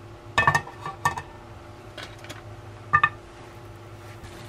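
Metal clinks and knocks of a thin frying pan and metal utensils being handled on a small gas stove: a short cluster about half a second in, another about a second in, and a sharp clink about three seconds in, each ringing briefly. A steady low hum runs underneath.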